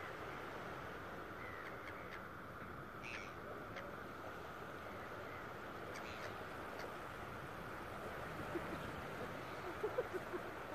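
Steady wash of surf and wind on the shore, with a few short gull calls over it. Several short, sharp little sounds come near the end.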